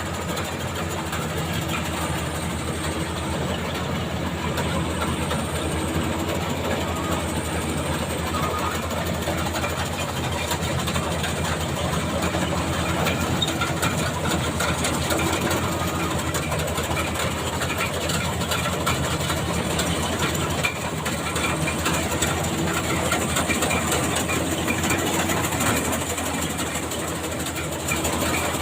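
Engine of a Maxxi Bimo 102 rice combine harvester running steadily with a deep hum and a fast, even pulse.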